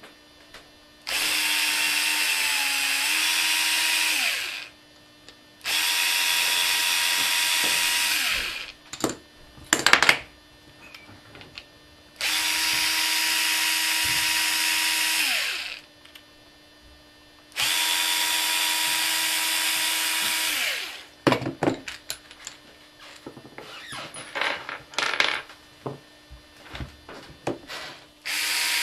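Cordless drill-driver running in four bursts of about three seconds each, backing screws out of an acrylic motor frame. This is followed by a string of clicks and knocks as the loosened plastic parts and screws are handled.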